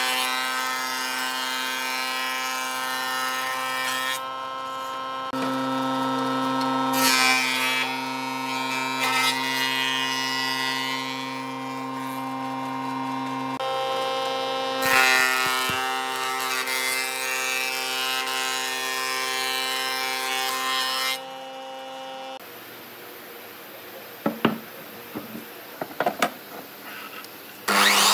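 Thickness planer running with a steady machine whine, with three long loud rushing stretches as weathered boat wood is fed through the cutterhead. Past the two-thirds mark the planer's noise gives way to a quieter stretch with a few sharp knocks, and a power miter saw starts up loudly right at the end.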